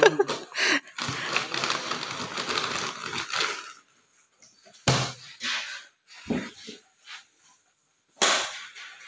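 Heavy equipment flight cases being moved and handled: about three and a half seconds of rattling clatter, then a few separate knocks and bangs.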